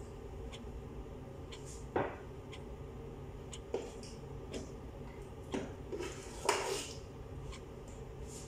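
A metal spoon clinking and knocking against a steel cooking pot and bowl: a handful of separate knocks, the loudest about six and a half seconds in, over a steady low hum.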